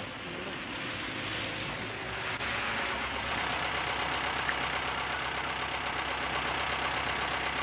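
Vehicle engines running steadily. About two and a half seconds in the sound changes to a truck's engine with a steady low hum.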